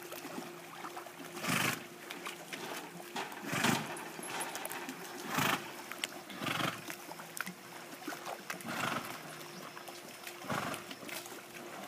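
A swimming horse blowing hard breaths, about six loud snorting exhalations one every second or two, winded from swimming laps against the current. A steady faint hum runs underneath.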